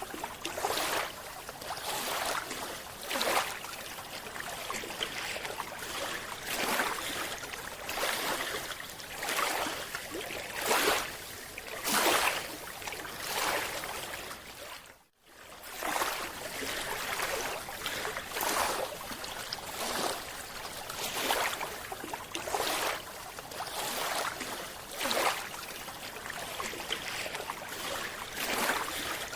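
Water sloshing and splashing in repeated surges, about one every second or so, with a brief cut-out about halfway through.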